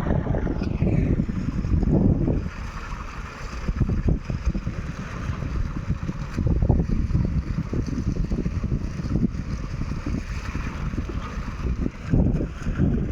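Sany truck-mounted concrete pump with a 47-metre boom running under load: an engine's rumble, with gusts of wind buffeting the microphone.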